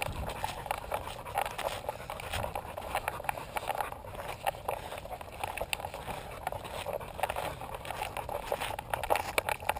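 Scraping, rubbing and light knocking of a harness-mounted action camera jostling against a walking dog's body, with irregular clicks and patter at each step on a dry dirt trail.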